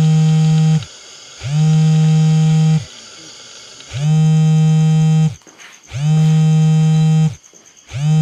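Phone ringing: a low buzzing tone that comes in pulses of a little over a second, repeated about every two seconds, each pulse rising slightly in pitch as it starts.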